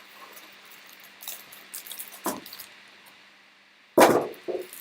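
Trading cards and cardboard hanger-box packaging being handled on a table: scattered light clicks and rustles, then a loud thump about four seconds in.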